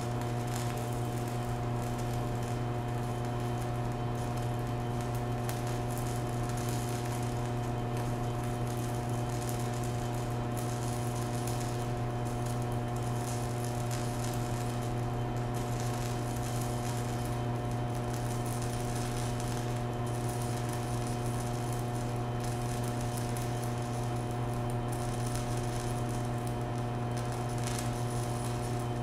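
DC stick (MMA) welding arc from a VEVOR 140A inverter welder set to 60 amps, burning a rod on 1/8-inch steel: a continuous hum with a fine crackle, at an even level throughout.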